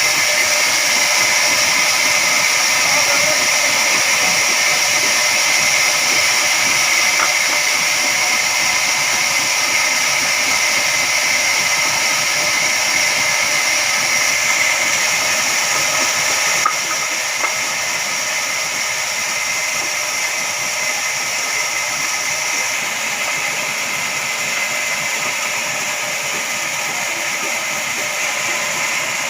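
Heavy-duty horizontal band sawmill running, its blade cutting through a big log with a steady high-pitched whine over a hiss. A single sharp click about seventeen seconds in, after which the sound runs slightly quieter.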